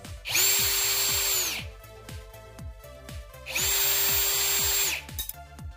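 Ryobi PSBDD01CN brushless cordless drill/driver running at a steady speed in two bursts of just over a second each, spinning its bit at the screws of a metal ceiling fan support box. Background music with a repeated falling bass beat plays underneath.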